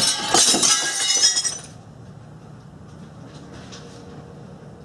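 A window's glass pane being smashed out, shattering with a sudden crash and ringing, tinkling shards for about a second and a half.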